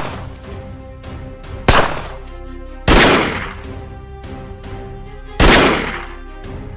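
Dramatic background music with held tones, cut through by three loud bangs, each trailing off over about a second.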